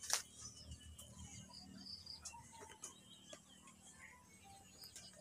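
Quiet outdoor ambience with faint, scattered bird chirps, and a single sharp click at the very start.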